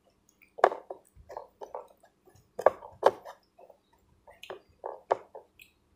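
Close-up wet chewing and lip-smacking of a mouthful of ripe strawberry, a string of irregular short squelches and smacks with a few sharper ones.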